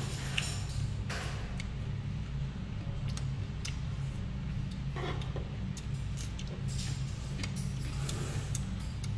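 Eating at a table: scattered light clinks and taps of spoons and chopsticks against bowls, over a steady low background hum.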